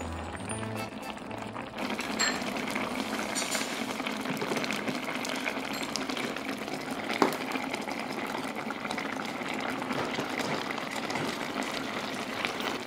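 Spicy braised beef short ribs simmering in an electric multi-grill pot: a steady crackling bubble of the boiling sauce. A single sharp knock about seven seconds in.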